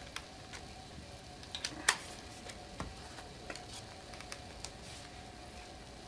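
Light scattered clicks of small screws and a handheld screwdriver being handled and set into a metal rail, with one sharper click about two seconds in.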